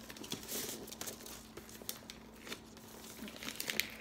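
Christmas wrapping paper crinkling and tearing in irregular crackly bursts as a small gift box is unwrapped, the rustling quickening near the end.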